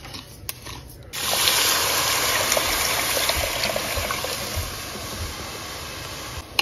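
A few taps of a wooden spoon in the pot, then water poured onto hot dry-toasted brown basmati rice in an enamelled pot. About a second in it starts with a sudden loud rush and hiss of water on the hot pot, which slowly dies down.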